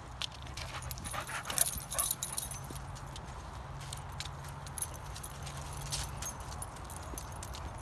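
Mastiff–shar-pei mix puppy nosing and stepping through dry fallen leaves: scattered rustling and crackling, loudest about two seconds in, over a steady low hum.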